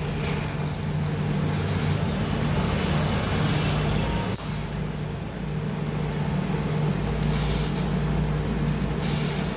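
TIG welding: a steady electric buzz from the arc and welding machine, over a hiss, with a brief dip about four and a half seconds in.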